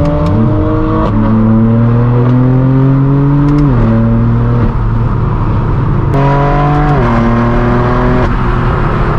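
Straight-piped BMW M4 F82's twin-turbo inline-six accelerating through the gears: the loud exhaust note climbs steadily in pitch and drops sharply at each of three upshifts, with a brief easing of the engine note about five seconds in.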